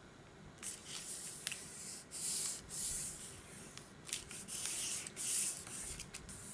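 Hands rubbing and pressing across cardstock, smoothing a freshly glued paper pocket flat onto the page: several short swishes of skin on paper.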